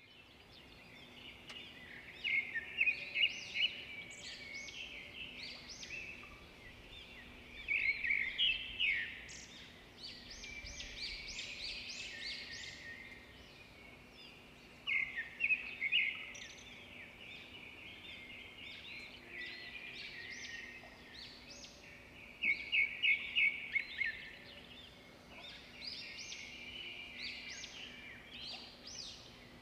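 Songbirds singing, with loud phrases of quick repeated notes every several seconds over a steady background of chirps.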